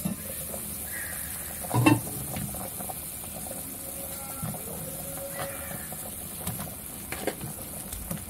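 Chicken soup boiling hard in an uncovered clay pot, a steady bubbling hiss. About two seconds in there is a loud knock of the glass lid being set down, followed by light clicks of chopsticks as mushrooms are dropped into the pot.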